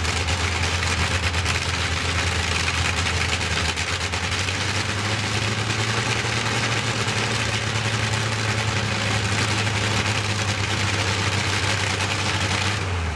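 Bristol Hercules 14-cylinder sleeve-valve radial aero engine running steadily at idle with no propeller fitted, then dropping away right at the end.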